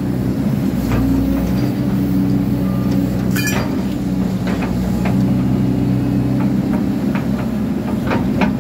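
Excavator's diesel engine and hydraulics running steadily under load while its shear attachment handles scrap metal, with a few short metal clanks scattered through.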